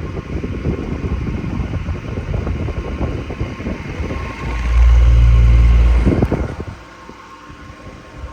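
Stand fan running with a steady hum, its airflow buffeting the microphone. About halfway through, a much louder deep hum comes in for a second and a half, then the sound drops to a quieter hum.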